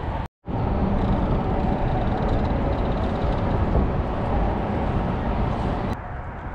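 Steady rush of road traffic on the highway bridge, cut off briefly by a short dropout near the start and falling in level about six seconds in.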